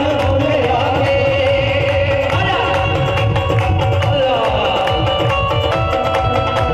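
Loud devotional music: a wavering, gliding melody over dense, continuous drum beats.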